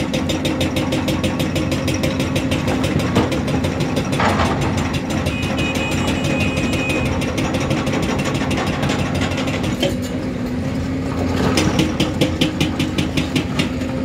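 Hyundai crawler excavator's diesel engine running under working load as it digs and swings rock, with a fast, regular clatter and a few sharp knocks. A brief high whine comes about five seconds in, and stronger rhythmic pulsing comes near the end.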